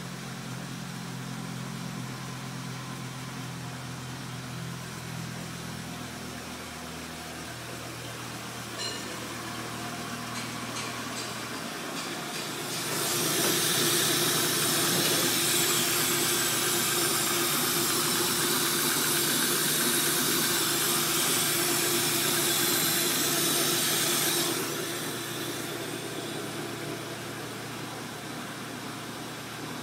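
VW T4 van engine idling steadily. For about twelve seconds in the middle a loud steady hiss rises over it, then drops away, and the idle continues.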